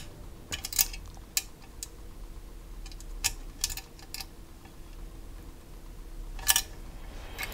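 Small metal clicks and taps of an Allen key against a screw and the metal hull parts of a die-cast model kit, a few scattered ticks with a louder double click near the end, as the key is worked into a hard-to-reach screw.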